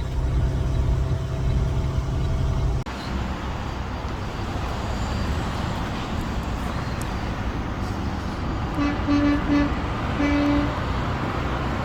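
Steady low drone of a truck's diesel engine heard from the cab, cutting off abruptly about three seconds in to steady road noise. Near the end a vehicle horn sounds three short toots, then one longer one.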